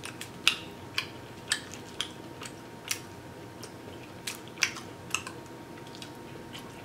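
Close-up wet mouth clicks and smacks of chewing barbecue ribs: short sharp clicks, irregular, one or two a second.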